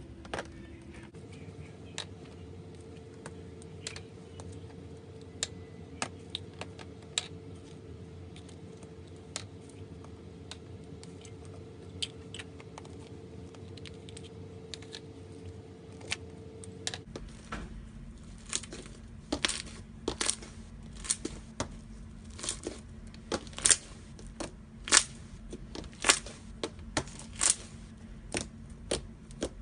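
Iceberg slime's hardened crust crackling as it is pressed and broken: scattered sharp crackles, sparse in the first half, then louder and more frequent from a little past the middle.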